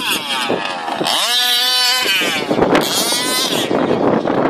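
Baja 5B RC buggy's 29cc two-stroke engine revving hard, its pitch climbing and falling in throttle bursts about every second or two.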